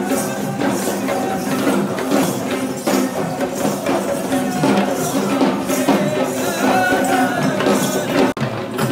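Sri Lankan perahera procession music: drums and other percussion beating with a held pitched melody over them. A brief dropout comes near the end.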